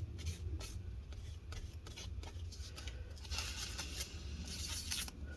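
Faint scratchy rubbing and wiping strokes as the laptop's CPU and GPU dies are cleaned, with two brief hissy rubs about three and four and a half seconds in, over a steady low hum.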